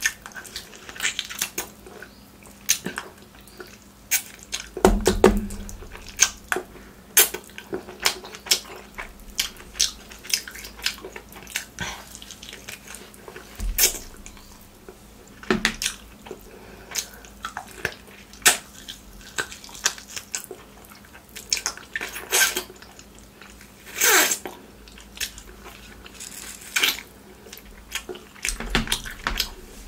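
Close-miked eating: wet chewing, lip smacks and mouth clicks of a person eating mutton curry, bone meat and rice by hand. The smacks come irregularly, about one a second, a few of them louder.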